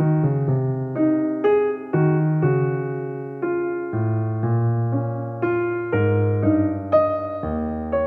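Background keyboard music: piano-like notes struck and fading over low bass notes, in a gentle steady rhythm.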